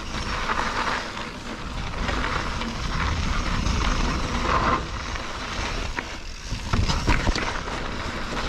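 Mountain bike rolling over a rough dirt trail: steady tyre and riding noise, with sharp knocks and rattles from bumps about two-thirds of the way in.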